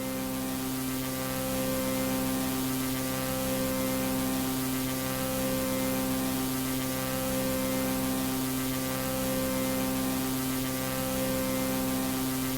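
Steady electrical hum with a layer of static hiss, a low tone inside it cutting out briefly every second or so.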